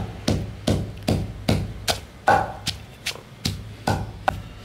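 Steady pounding in a mortar and pestle, about two and a half strikes a second, as dried shrimp is pounded with shrimp paste.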